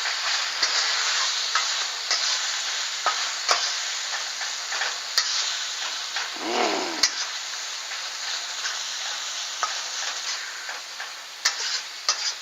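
Shrimp, garlic and seasonings sizzling in oil in a hot wok while a utensil stirs them. Scattered sharp clicks of the utensil knock against the pan.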